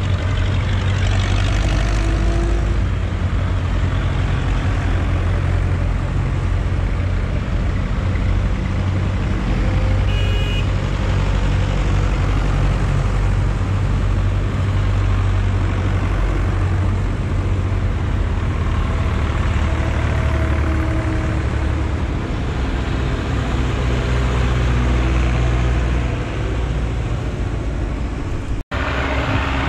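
Zetor tractor diesel engines running steadily as tractors drive past one after another, a heavy low engine drone. The sound cuts out for an instant near the end.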